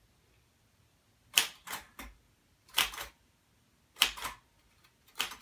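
Keys of a 1966 Royal Aristocrat manual typewriter struck hard, one at a time: sharp type-bar clacks, often in pairs, about every second. The keys are hammered to force print out of a dried-out ribbon.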